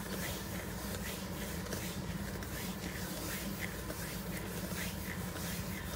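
Ball of yeast dough rolled under the palm in circular motions on baking paper: a faint, soft rubbing that repeats about two or three times a second, over a steady low hum.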